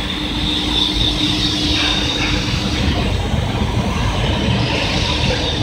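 Steady din of factory machinery and an assembly line running, with a constant low hum and a high whine that fades about two seconds in and comes back near the end.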